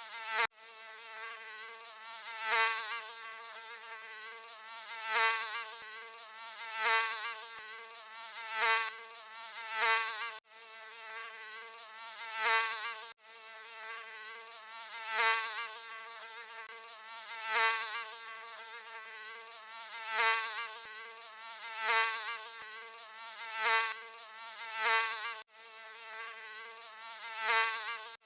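Mosquito buzzing: a continuous wavering whine that swells loud roughly every two seconds, as if the insect were flying close past the ear, broken by a few brief, sudden dropouts.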